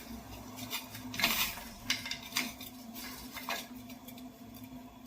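Kitchen utensils clinking and tapping against a small teapot and dishes as spice and herb ingredients are added: about six light clinks in the first three and a half seconds, then fewer. A low steady hum runs underneath.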